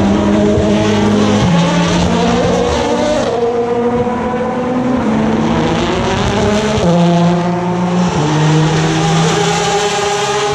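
Endurance race cars' engines at full volume through a slow corner, their notes holding a pitch and jumping between gears, with one note rising steadily in the middle as a car accelerates away.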